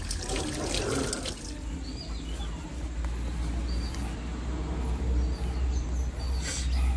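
Water running from a hose over a wet pug for about the first second and a half. Then a quieter stretch with a steady low hum, and a brief rustle of a towel being rubbed over the dog near the end.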